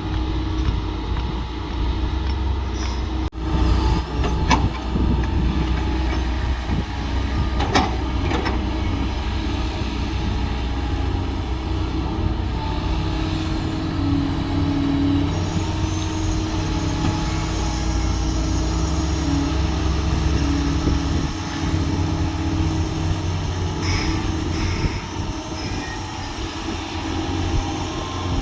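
Diesel engine of heavy earthmoving machinery running steadily, with a few short clanks about three, four and a half and eight seconds in.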